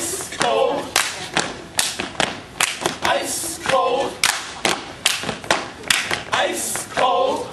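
Step team stepping: rhythmic foot stomps on pavement, hand claps and body slaps at about two to three hits a second. Short shouted group calls break in near the start, midway and near the end.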